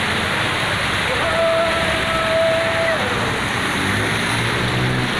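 Floodwater rushing fast along a street, a loud steady wash of water with rain. About a second in, a long steady high tone sounds for nearly two seconds, and a low hum comes in near the end.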